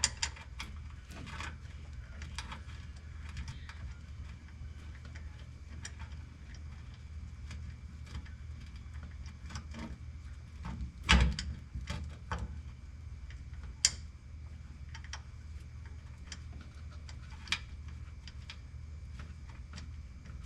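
Scattered light clicks and taps of metal bolts and tools being handled while new bolts are started by hand, with a louder knock about eleven seconds in, over a steady low hum.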